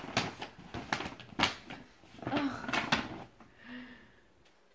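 Paper gift packaging and tissue paper being handled as presents are unwrapped: a string of short crinkles, rustles and light knocks, dying away near the end.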